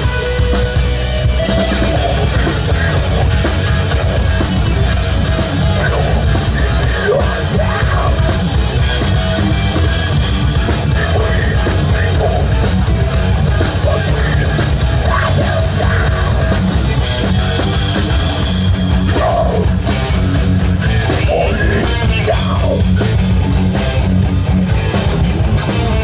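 A heavy metal band playing live: electric guitars, bass guitar and a drum kit, loud and bass-heavy, with cymbals coming in about a second and a half in.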